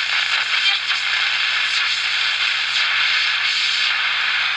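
Loud, steady static hiss with a low hum under it from the small speaker of a repaired 1973 Radio Shack Science Fair AM transistor radio. The repairer thinks the camera held close to the radio is generating the interference.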